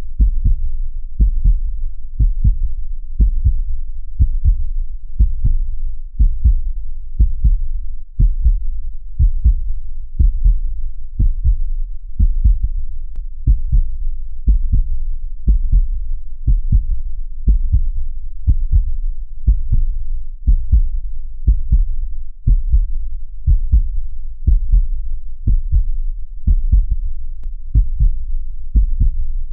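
Heartbeat pulsing steadily: low, even thumps about twice a second over a constant deep rumble.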